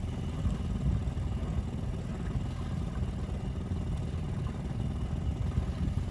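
Boat engine idling steadily, a low rumble with a faint hum above it.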